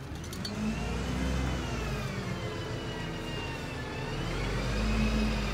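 A single-decker bus's engine running low as the bus pulls away, with a high whine that rises and falls above it; the engine grows louder near the end.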